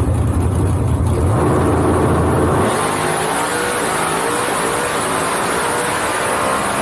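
Drag race car engine running loud at full throttle. About two and a half seconds in, the deep rumble drops away and a higher, wavering engine tone takes over.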